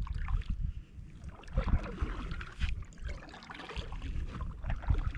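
Kayak paddle strokes: the blades dipping and splashing in calm water, with water dripping off them, in an irregular rhythm.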